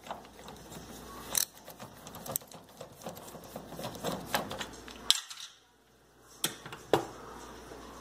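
Hand screwdriver backing out the screw that holds a GE microwave's keypad, with scattered sharp clicks and taps of metal on metal. The sound drops out briefly a little past the middle.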